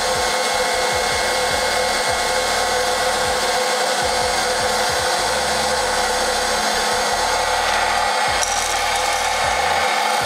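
Hot air popcorn popper running steadily, its fan blowing hot air through a load of green coffee beans at the start of a roast: an even whoosh with a faint hum underneath.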